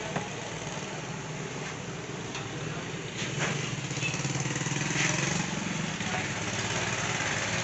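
Busy food-stall kitchen ambience: a steady low hum with indistinct background voices. There is a sharp click just after the start and a few light utensil clatters between about two and three and a half seconds in, and a brief rise of hissing noise about five seconds in.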